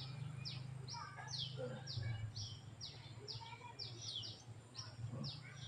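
A bird calling over and over in short, steeply falling high notes, about two a second, over a steady low hum.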